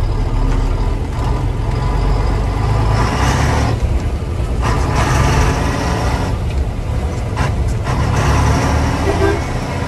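Atkinson Borderer lorry's Rolls-Royce 280 diesel engine running under load, heard from inside the cab as the truck drives. Its note shifts a few times as the driver works through the gears of the Fuller Road Ranger gearbox.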